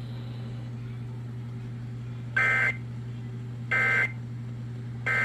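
Emergency Alert System end-of-message data bursts from a NOAA Weather Radio broadcast: three short two-tone warbling bursts about a second apart, the digital signal that marks the end of the severe thunderstorm warning. A steady low hum runs underneath.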